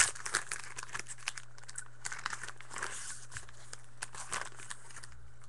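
Foil wrapper of a trading card pack crinkling in scattered bursts as it is handled and opened, with the cards being worked out by hand.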